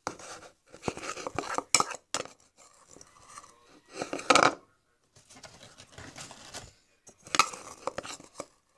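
Kitchen clatter: a bowl and utensil clinking, knocking and scraping as leftover flour is put back into its container, with the loudest clatter about four seconds in and another near the end.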